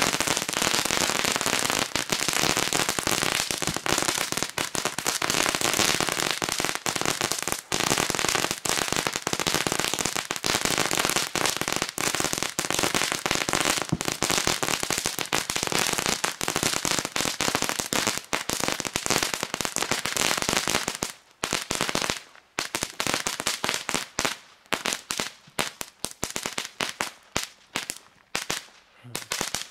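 Several Zena Knetterton XL crackling fountains (pressed 100 g crackling pellets) burning together, giving a dense, continuous crackle of tiny pops. About two-thirds of the way through it thins out into scattered separate pops as the fountains burn down.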